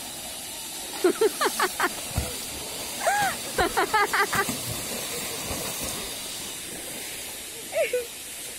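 Water pouring from an inlet pipe into an elephant's bathing pool and splashing as the elephant throws it about with her trunk, a steady hiss. Over it, two quick runs of short, high, pitched calls, about a second in and again around three to four seconds in, and one brief call near the end.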